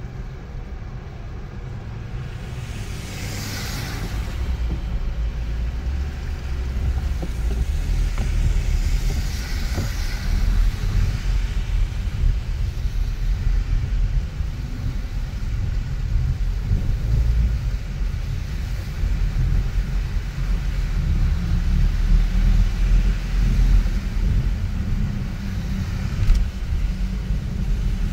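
Car driving on a snowy city street: a steady low rumble of road and engine noise that gets a little louder after about four seconds. Brief hissing swooshes come through about three seconds in and again around ten seconds.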